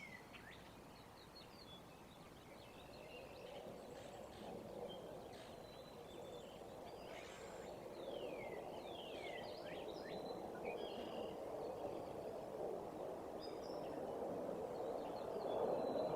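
Jet aircraft approaching overhead: a noisy rumble that grows steadily louder. Birds call over it with short down-slurred whistles.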